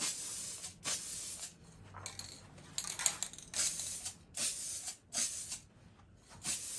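Rust-Oleum gloss clear aerosol spray can hissing in about half a dozen short bursts, each under a second long, with brief pauses between, as a clear coat is laid on a painted badge.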